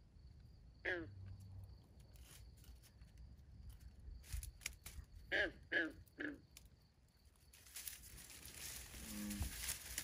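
Frogs calling at a pond at night: a short croak about a second in, then three more in quick succession around five to six seconds in, over a faint steady high insect trill. A hiss swells up over the last couple of seconds.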